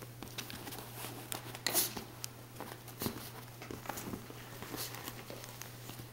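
A four-month-old miniature pinscher–papillon mix puppy wrestling and shaking a plush toy on a couch cushion: irregular rustles, scuffles and soft thumps, the loudest a bit under two seconds in.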